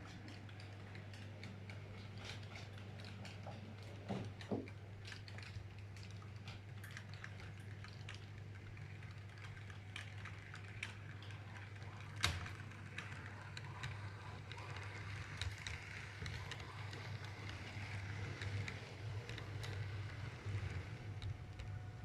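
H0 model train running on the layout: a steady low motor hum with scattered light clicks, and two louder knocks about four and twelve seconds in.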